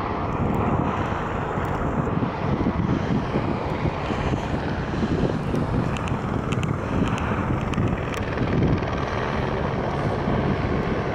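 A police helicopter circling, a steady drone mixed with wind buffeting the microphone.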